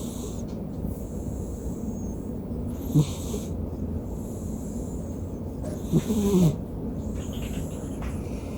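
A domestic cat snoring, one snore about every three seconds over a steady background hiss. The snore about six seconds in is the longest and falls in pitch.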